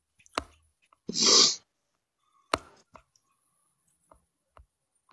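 A person's short breathy sound about a second in, with a few sharp clicks before and after it and near silence between.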